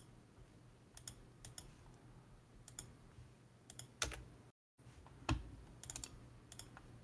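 Faint, scattered clicks of a computer keyboard and mouse as a terminal command is pasted and run, coming singly and in small quick groups. Two louder clicks fall about four seconds in and just after a brief dead-silent gap.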